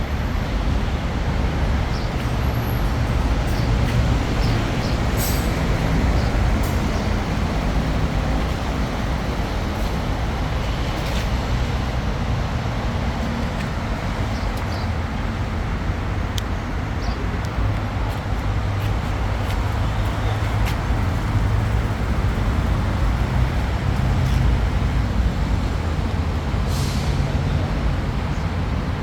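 A motor vehicle running steadily, a low rumble with a few faint clicks.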